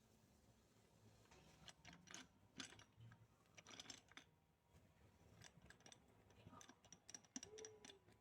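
Faint, scattered clicks and light metallic taps of small steel differential gears being handled and seated in the planetary carrier during a limited-slip assembly.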